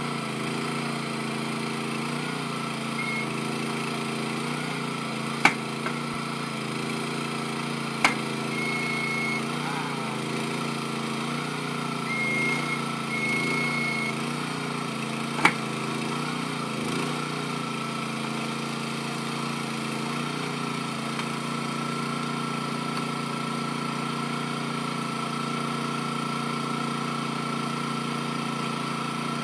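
Small combustion engine of a hydraulically driven overhead-line cart running steadily, its pitch stepping up and down for the first half and then holding even. Three sharp clicks cut in over it during the first half.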